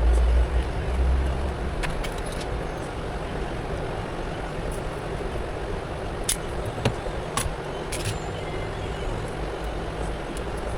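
Steady background rumble and hiss, heaviest in the first second and a half, with a few light, sharp clicks scattered through.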